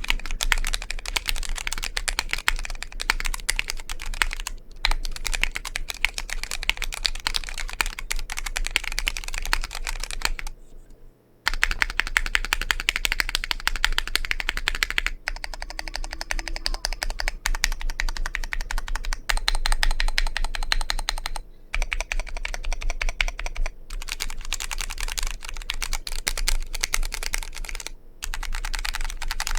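Fast typing on a Vortex POK3R 60% mechanical keyboard with Cherry MX RGB Red linear switches: a dense run of key clacks, broken by a few short pauses. The longest pause comes about ten seconds in.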